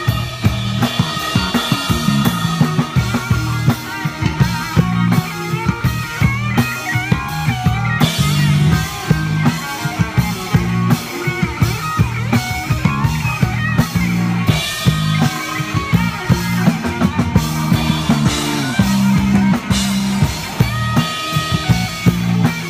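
Live rock band playing an instrumental passage: an electric bass guitar picked close to the microphone carries a strong, moving bass line over a drum kit, with electric guitar lines on top.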